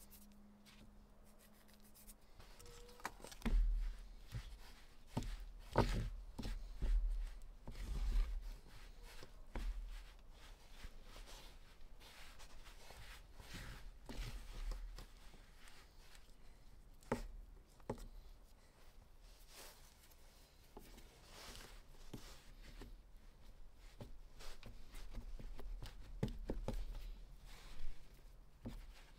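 Hand kneading flour and water into bread dough in a metal baking ring on a wooden table: dry rubbing and scraping of flour turning into squishing dough, with scattered knocks and low thumps, most of them in the first third and again near the end.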